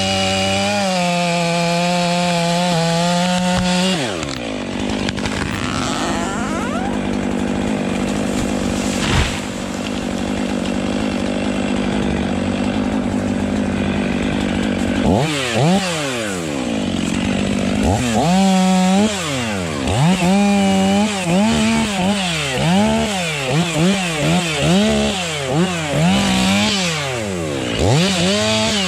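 Chainsaw running at high revs for about four seconds, then bogging and cutting into wood. From about halfway it is revved up and down over and over, roughly once a second.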